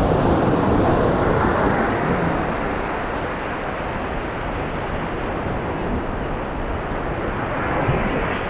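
Surf breaking and washing up a beach, with wind rumbling on the microphone. The wash is loudest at the start and swells again near the end.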